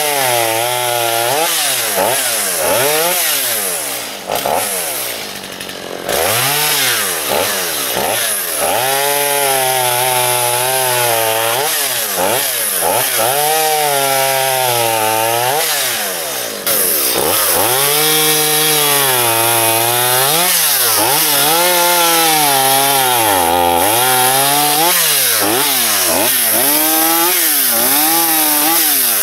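Stihl MS210 two-stroke chainsaw cutting through a fallen tree trunk. Its pitch rises and drops again and again as it revs up, pulls down in the cut and eases off. It is running under load on a newly fitted aftermarket carburetor.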